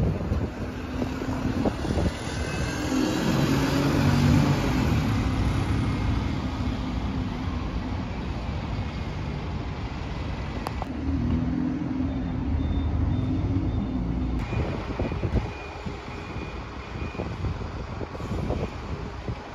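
Alexander Dennis Enviro200 single-deck diesel bus pulling away and passing close, its engine swelling to a peak a few seconds in and then fading. A second bus engine runs about halfway through, over a steady rush of wind on the microphone.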